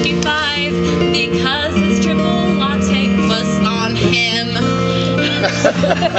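A woman singing a show-tune ballad live, with vibrato on held notes, over instrumental accompaniment.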